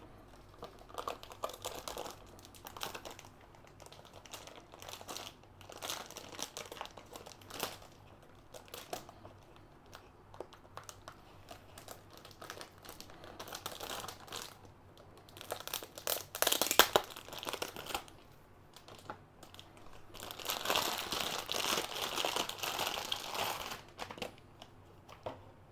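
Packaging wrap crinkling as it is handled, in irregular bursts, with a few sharp clicks about two-thirds of the way in and a longer stretch of continuous crinkling near the end.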